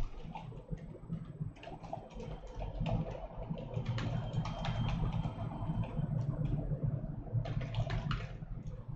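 Typing on a computer keyboard: scattered clusters of key clicks over a steady low hum.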